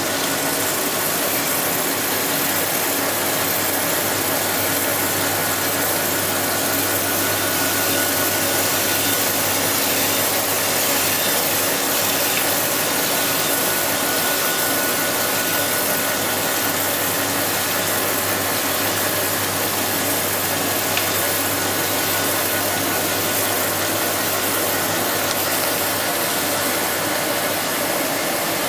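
AMC 1500H crankshaft grinder running steadily, its wheel grinding a main journal of a Chevrolet 305 crankshaft down to final size under coolant spray. It is a steady hiss over a low machine hum.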